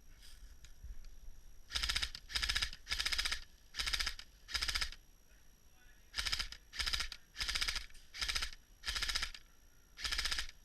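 Footsteps at a steady walking pace, each step a short crackling crunch. They come in two runs of five and six steps with a brief pause between.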